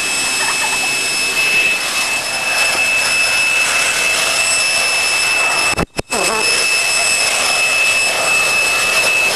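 Electric leaf blower running steadily: a rush of air with a constant high-pitched whine. The sound cuts out for a split second about six seconds in, then resumes unchanged.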